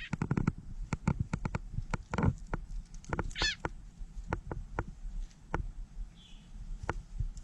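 A captured bird crying out twice, a lower cry about two seconds in and a higher wavering squeal about a second later, among many sharp clicks and knocks.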